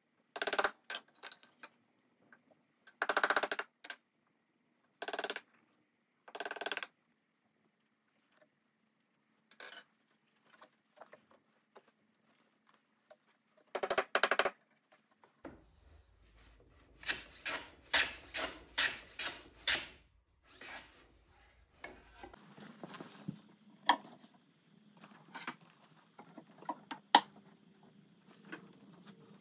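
Hand tools working wood: short scraping strokes of a chisel paring a dovetail joint, then a run of quick, even strokes about three a second, and a few sharp taps near the end.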